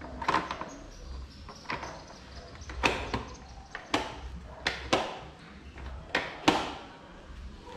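Sharp plastic knocks and clacks as a solo-seat cowl is pushed and pressed onto the tail of a Honda CBR 600RR, about eight hits spread irregularly, the loudest near the end. The cowl is not snapping into its mount.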